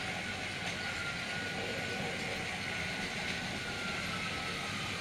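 Battery-powered Trackmaster toy train running along plastic track: a steady whir with a thin whine that slowly drops in pitch.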